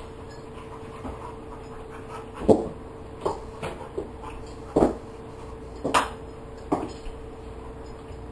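A dog panting and tugging at a rag tied to a refrigerator door handle, with about six short sharp knocks and snaps as it pulls and bumps the door.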